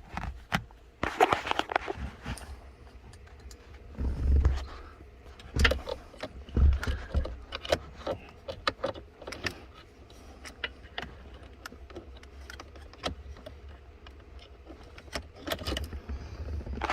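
Small metal hand tool clicking and clattering against bolts and plastic under a pickup's dashboard, irregular sharp clicks with a few dull knocks, while the blend door actuator's small bolts are worked loose.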